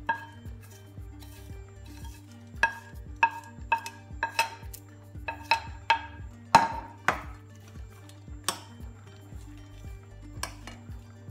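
A metal spoon clinking and scraping against ceramic plates while fried onions are spooned onto fried chicken: a dozen or so sharp, ringing clinks at uneven intervals, the loudest about six and a half seconds in.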